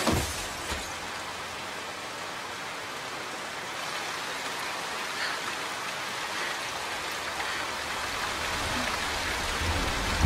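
Heavy rain falling steadily, an even hiss of drops hitting the ground.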